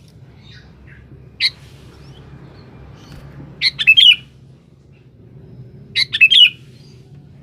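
Sooty-headed bulbul (kutilang) calling: one short note, then two quick phrases of several rapid notes, about two and a half seconds apart.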